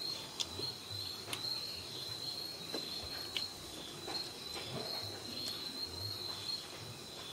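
Night insects trilling steadily at a high, even pitch, with a few faint clicks and smacks from hand-eating.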